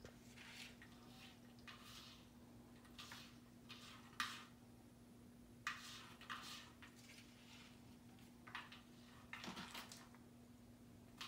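Faint, scattered rustles and scratches as a cat moves and paws among potted plants on a wooden side table: about ten short, soft bursts, the sharpest about four seconds in, over a steady low hum.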